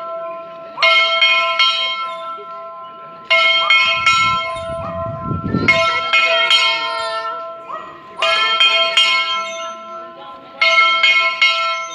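Church bells ringing: clusters of three or four quick strokes repeat about every two and a half seconds, and the bells hum on between the clusters.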